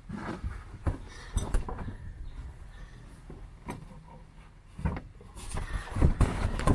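Handling noise from a car's loose carpet and felt padding being lifted and worked by hand over foil-faced floor insulation: scattered rustles and soft knocks, with louder, denser rubbing near the end.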